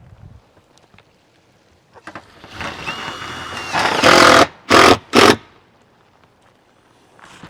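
A power driver running a screw into metal roofing panel: a whir that builds for about a second and a half, then three short loud bursts as the screw is driven home.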